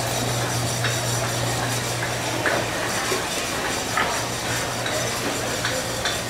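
Busy food-stall background: a steady low hum and noise, with scattered light clinks of dishes and utensils about once a second.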